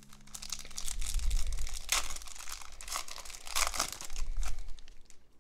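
Wrapper of a baseball card pack crinkling and tearing as it is ripped open by hand, with louder crackles about two seconds in and again near four seconds.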